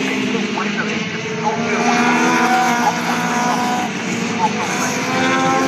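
A pack of Legends race cars running through a corner, several motorcycle-derived engines revving at once with their pitches overlapping and shifting.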